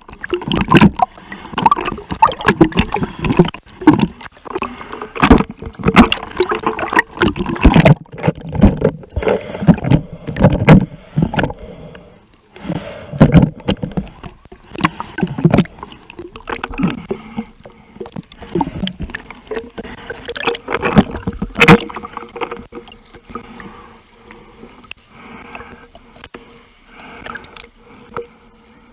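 Water splashing and sloshing close to the microphone as a person swims, in irregular bursts of strokes. The bursts are heavy through the first twelve seconds, come again around the middle, and grow fainter and sparser near the end.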